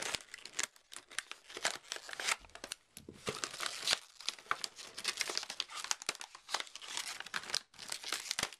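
Stiff plastic clamshell packaging being handled and pulled apart: irregular crackling, crinkling and snapping of the plastic.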